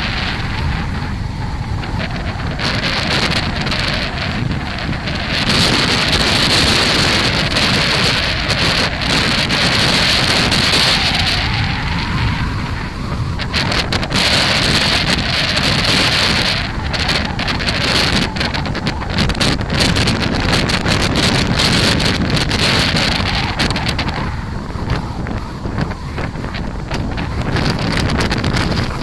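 Strong gusty wind buffeting the microphone: a loud, continuous rumble that swells into hissier gusts about five seconds in and again around fifteen seconds, easing near the end.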